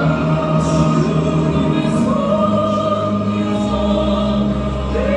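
Korean gospel worship song: voices singing with a choir over instrumental accompaniment, in long held notes.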